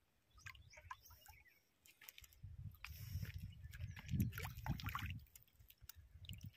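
Small hooked tilapia thrashing and splashing at the water's surface as it is drawn in to the bank. A low rumble comes and goes around the middle, along with scattered sharp splashes.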